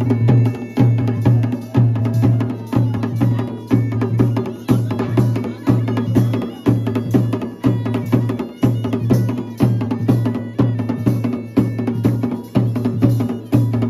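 Live Pahadi dhol drumming in a fast, steady beat of about two heavy strokes a second with sharp stick hits between, and a mashakbeen (folk bagpipe) melody playing over the drums.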